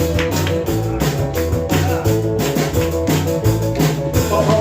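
Live rock and roll band playing an instrumental intro: a walking bass line, a steady drum beat and guitar chords, with no singing yet.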